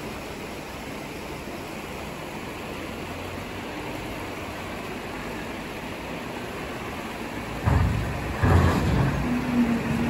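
Wheel loader's diesel engine running with a steady hum, then, about eight seconds in, loud low rumbling and knocking as the bucket drives into a pile of fallen rock, with the engine note coming up under the load.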